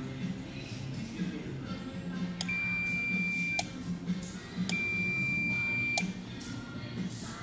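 Fluke 115 multimeter's continuity beeper sounding twice, each a steady high beep of about a second that starts and stops sharply. The beeps mean continuity across the probed relay-pack pins.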